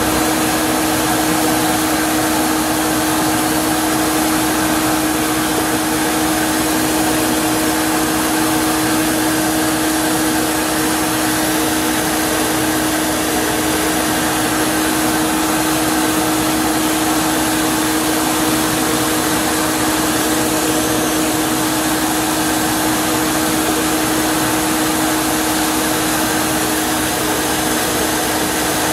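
Shop vacuum drawing air through a dust-extraction nozzle beside a running drill press fitted with a plug cutter: a steady rush of air with a constant hum, unchanging throughout.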